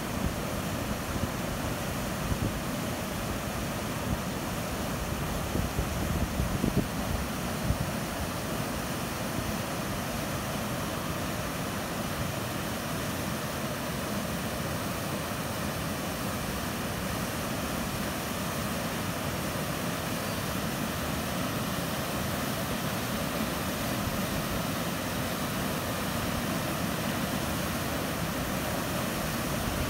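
Brown floodwater rushing over a concrete road floodway and spilling off its downstream edge into the flooded creek, a steady noise of fast water. A few low bumps come in the first eight seconds or so.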